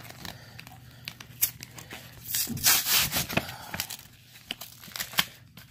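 Clear plastic blister pack of trading cards being worked open by hand: crinkling and crackling of the stiff plastic, with a louder tear about two and a half seconds in.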